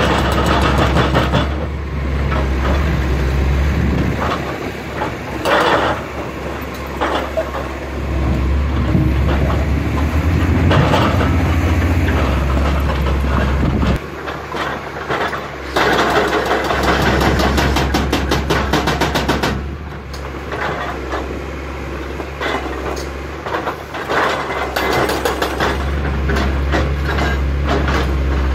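Atlas Copco HB 4200 hydraulic breaker on a CAT 345B excavator hammering into soft-to-medium-hard limestone, a rapid run of blows with a few short pauses. The excavator's diesel engine runs steadily underneath.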